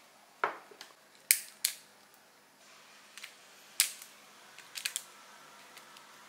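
Black pepper being ground over the food: a series of sharp, short crunching clicks in irregular groups as the pepper mill is twisted.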